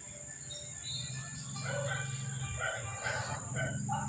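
Background animal calls, a string of short pitched calls, over a steady low hum that starts about a second in.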